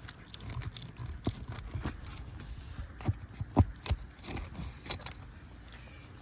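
Crowbar prying nails out of asphalt roof shingles: scattered metal clicks, scrapes and light knocks, a few sharper ones about three to four seconds in.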